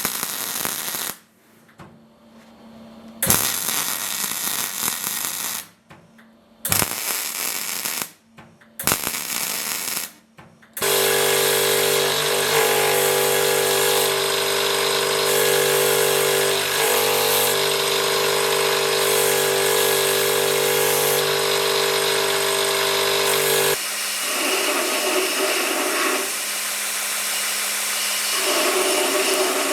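Power tools at work: short noisy bursts with pauses for about the first ten seconds, then an electric motor running steadily. Near the end the sound changes, with a louder rasp coming and going.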